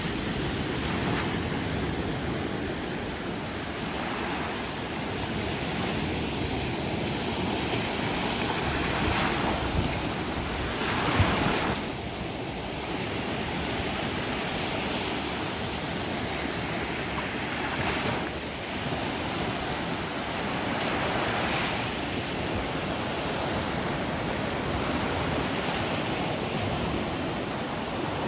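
Sea waves breaking and washing in continuously, swelling louder every few seconds, with wind on the microphone.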